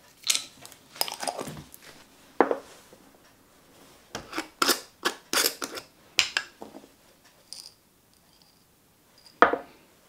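Small glass spice jars being handled: lids clicking and twisting, glass jars knocking on a wooden board, and whole cloves rattling as they are shaken out. A series of short clicks and taps comes in little clusters, and a single louder knock near the end is the jar being set down.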